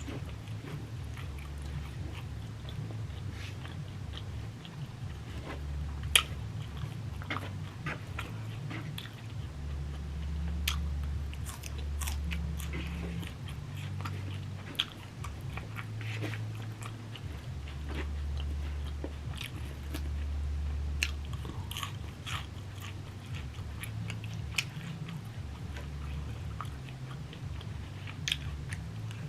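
A person chewing a mouthful of a Chipotle steak, chicken, rice and bean bowl close to the microphone, with scattered wet mouth clicks and smacks. A steady low hum runs underneath.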